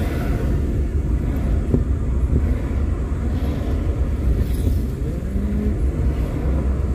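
Car driving on the road, its engine and tyre noise a steady low rumble picked up by a dashcam.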